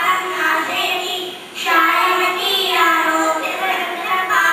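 A group of young girls singing together into handheld microphones, with a short pause for breath about a second and a half in.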